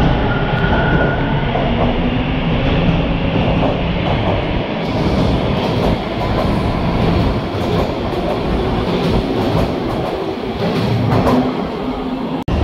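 TTC T1 subway train pulling out of the station and gathering speed past the platform, its motors whining steadily at first, then from about five seconds in a quickening run of wheel clicks over the rail joints as the cars go by. The sound cuts out briefly just before the end.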